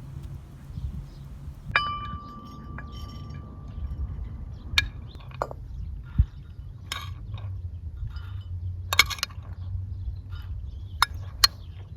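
Cookware and utensils clinking: several scattered sharp clinks, one about two seconds in that rings on for a couple of seconds like struck metal or glass, over a steady low rumble.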